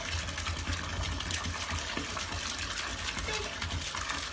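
Bathtub faucet running, a steady stream of water pouring into the tub with a low rumble underneath.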